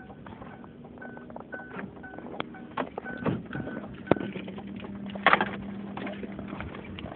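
Car warning chime beeping about twice a second, stopping after about four seconds, with scattered clicks and a sharp knock a little after five seconds.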